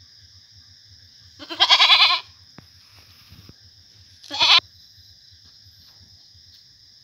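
Goat doe in labour bleating twice: a long wavering bleat, then a short one about two seconds later.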